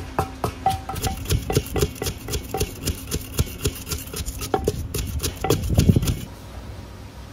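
Rapid, even knocking of kitchen utensils during som tam preparation, about four to five strikes a second, many with a short ringing tone; it stops about six seconds in.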